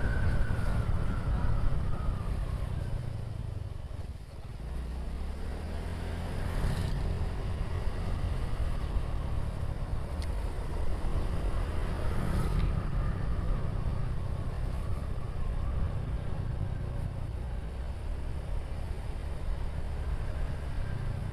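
Motorcycle engine running while being ridden, heard from the rider's seat with wind rumbling on the microphone. The engine note falls in the first couple of seconds, eases off about four seconds in, then rises again as the bike picks up speed.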